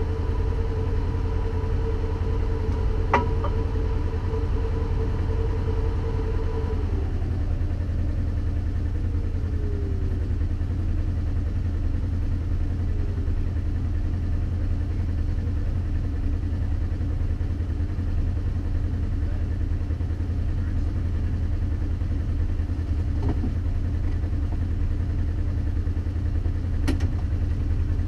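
Off-road vehicle's engine idling steadily with a low, even rumble. A steady high tone runs over it and stops about seven seconds in.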